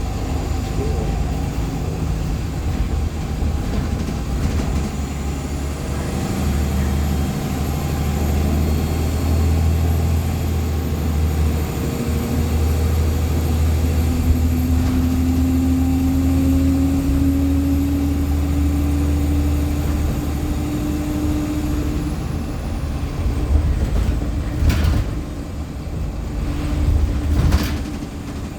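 Cummins ISL9 diesel of a 2014 NOVA LFS articulated hybrid bus running under way, heard from inside: a low engine drone with a thin high turbo whistle that holds and then falls away a little past two-thirds through, and a rising whine in the middle. Two short sharp noises near the end.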